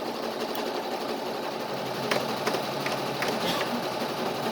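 Steady whirring of a running machine with no break, with a few light clicks about halfway through.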